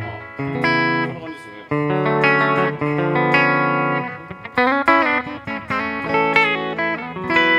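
Wing Instruments headless neck-through electric guitar played through its rear DiMarzio 36th Anniversary pickup: held chords, then a quicker phrase of single notes with string bends from about the middle on.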